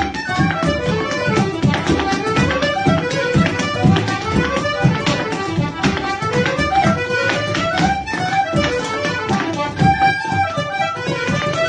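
Irish traditional dance tune played on accordion, flute and tin whistle over a bodhrán beat, with a dancer's shoes tapping out steps on a wooden floor.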